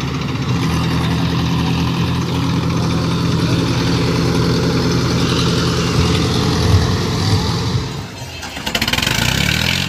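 Diesel tractor engines running steadily under load, towing a tractor stuck in deep mud. About eight seconds in the sound drops briefly and then changes.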